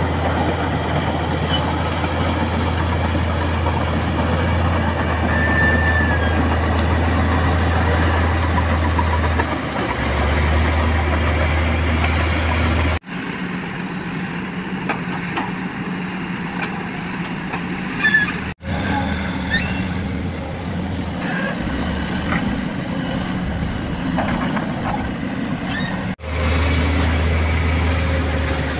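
Kobelco SK200 hydraulic excavator's diesel engine running steadily while digging. The sound changes abruptly three times, where separate shots are cut together.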